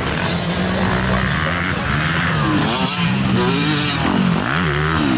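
Several motocross bikes racing on a dirt track, their engines revving up and down, with overlapping rises and falls in pitch from about halfway through.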